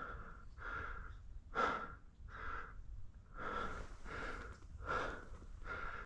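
A man breathing hard and fast close to the microphone, quick breaths about every half second, winded from hurrying through brush after a shot duck.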